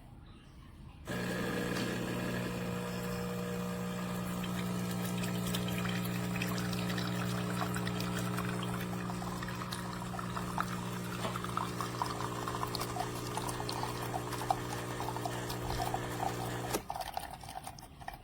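De'Longhi espresso machine's pump humming steadily as a shot brews, with espresso trickling and pouring into a mug. The hum starts about a second in and cuts off near the end as the shot finishes.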